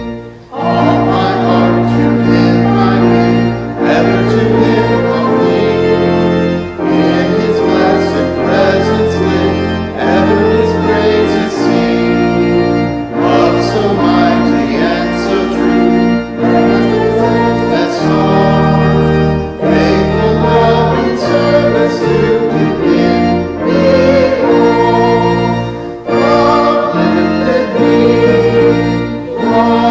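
Church music: an organ playing sustained chords under singing voices, in phrases of a few seconds with short breaths between them.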